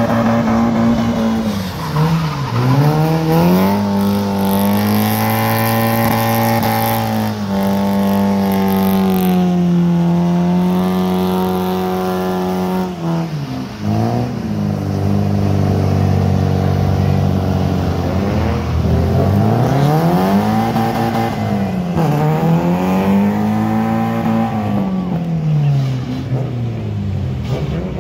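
A drift car's engine revving hard, held high for seconds at a time, dropping and climbing again, then rising and falling in quick swells near the end. Tyres squeal as the car slides.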